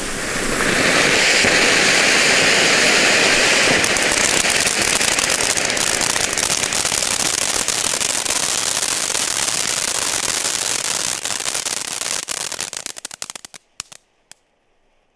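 Four small youth (category F1) firework fountains burning together: a loud hiss of spraying sparks, turning about four seconds in into dense crackling. Near the end it thins out to a few scattered pops and stops.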